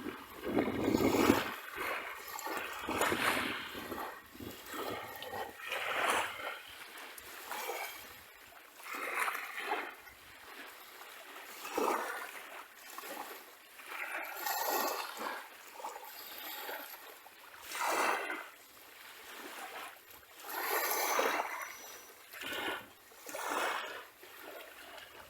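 Small sea waves washing and splashing onto a beach, each surge swelling and falling away every two to three seconds.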